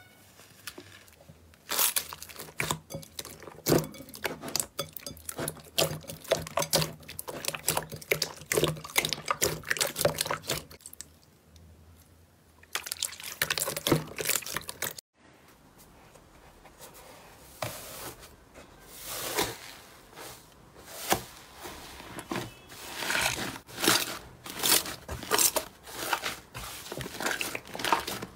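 Hands kneading and squeezing slime: wet squelching with rapid sticky pops and clicks. It starts about two seconds in, breaks off sharply about halfway, and picks up again with a second, foamier slime being squeezed.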